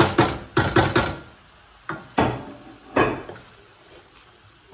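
Wooden spoon scraping and knocking against a stainless-steel sauté pan while stirring sliced mushrooms and garlic. There are about eight sharp strokes in the first three seconds, then the stirring eases off over a faint sizzle of frying.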